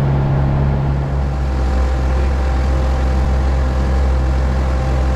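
Engine of a motorized outrigger fishing boat running steadily while under way, a constant low drone with a slight shift in its note about a second and a half in.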